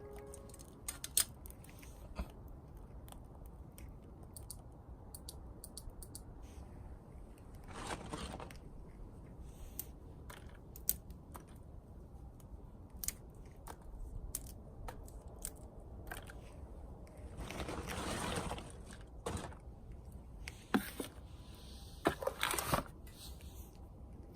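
Small wood burning in a wood stove, crackling with scattered sharp snaps and pops, and two longer rushing noises, one briefly about a third of the way in and a longer one past the middle.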